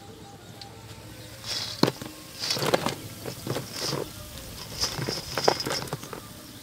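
Crispy fried rabbit pakoras tipped off a metal slotted ladle onto a heap of pakoras: a run of crunchy clatters and rustles, starting about a second and a half in and easing off near the end.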